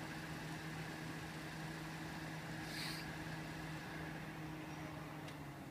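Steady low hum of an idling engine, even in pitch throughout, with a brief hiss about three seconds in.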